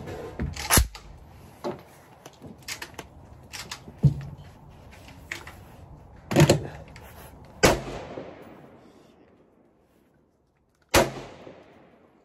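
Gunshots at a shooting range: several sharp reports, four of them louder. Two of the louder shots come close together past the middle and one comes near the end, each trailing off in a long echo, with fainter shots in between.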